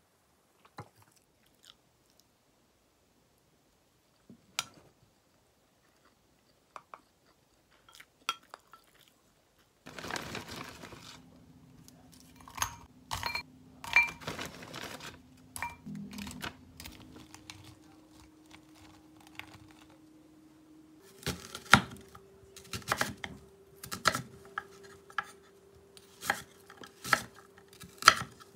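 Faint taps of a wooden spoon in a ceramic bowl and quiet chewing, then raw shrimp handled in a glass bowl with light glassy clinks, then a knife chopping an onion on a wooden cutting board, sharp strikes about once a second.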